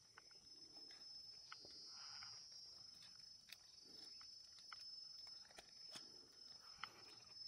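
Near silence: faint scattered clicks and rustles of wet dead leaves as a caught snakehead is held down and handled, under a thin steady high whine that swells briefly about two seconds in.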